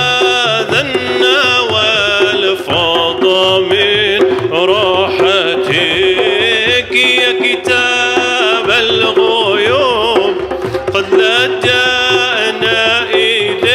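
Arabic devotional song (nasheed): a voice sings long, ornamented melismatic lines that glide up and down over a steady held note, with soft drum beats underneath.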